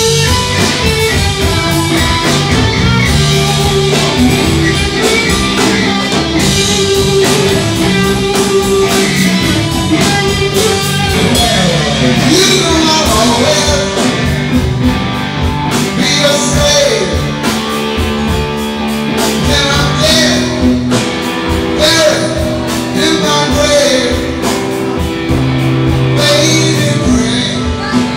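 Live blues-rock band playing an instrumental break: electric guitar over drums, with bent guitar notes sliding up and down in pitch through the middle.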